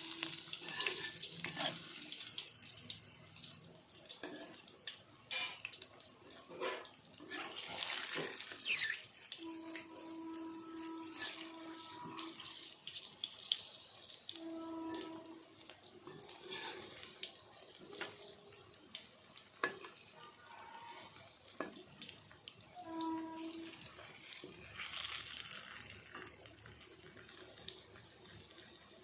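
Pakoras frying in hot mustard oil in a kadhai: a steady sizzle with scattered clicks and scrapes of a spoon turning them.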